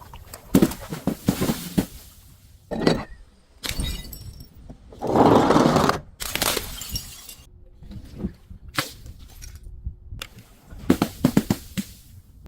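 Glass bottles breaking and being crushed: a run of sharp cracks and crunches with gaps between them, the longest crunch about five seconds in, and a quick cluster of cracks near the end.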